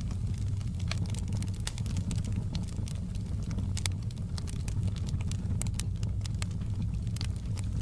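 Fireplace fire crackling: frequent sharp pops and snaps, several a second, over a steady low rumble.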